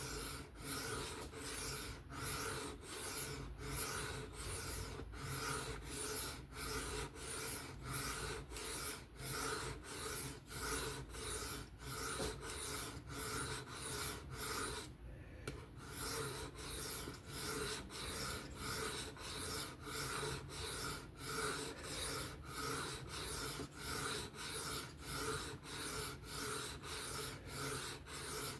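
Steel knife blade drawn back and forth across a sharpening stone in steady, even scraping strokes, about three strokes every two seconds, with a brief pause about halfway through.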